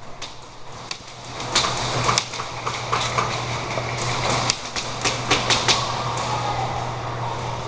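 Airsoft gunfire in an indoor game: irregular sharp snaps and clicks of shots and BBs striking hard surfaces, densest in the middle, over a steady low hum.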